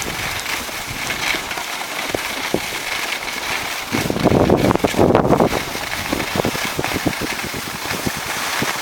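Wind buffeting the camera microphone and skis scraping over packed snow during a downhill ski run, with a louder rush about four to five and a half seconds in.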